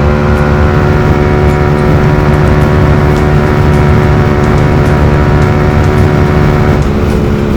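Yamaha R15 V3's single-cylinder engine running at steady high revs through a very loud aftermarket exhaust while the bike cruises at speed, easing slightly near the end.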